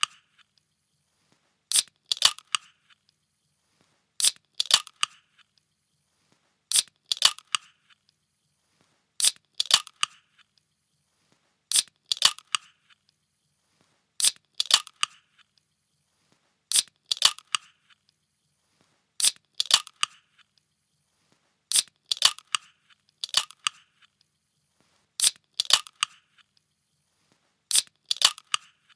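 Pull-tab can being cracked open again and again, about once every two and a half seconds; each opening is a sharp crack followed by a short burst of crackle.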